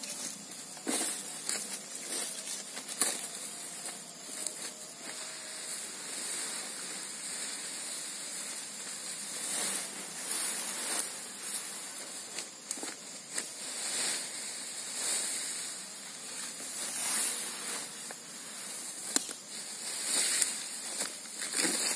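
Cut grass and leafy plants rustling, with irregular crackles, as they are gathered and bundled by hand.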